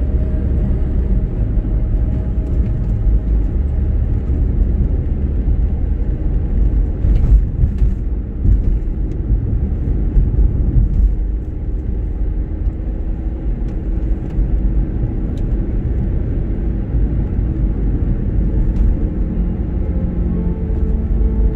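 Car engine and tyre noise heard from inside the cabin while driving, a steady low rumble.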